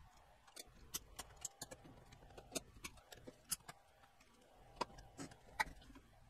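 Irregular light clicks and taps of a Sony ICF-SW7600G radio's circuit board and plastic case being handled and pressed into place by hand.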